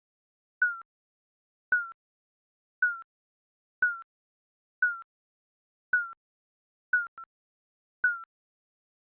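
Digital countdown timer beeping once a second: short, mid-pitched electronic beeps that dip slightly in pitch, each starting with a faint click. About seven seconds in, one beep is followed by a quick extra blip.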